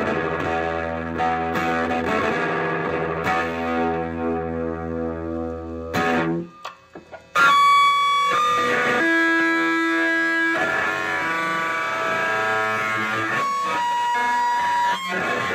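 Gibson Gospel acoustic guitar with a DeArmond pickup, played through two small Fender Champ valve amplifiers: chords ringing out, a brief drop about six seconds in, then loud held notes that ring on and step between pitches.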